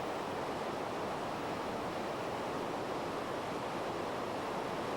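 Running water rushing steadily, an even noise that does not change.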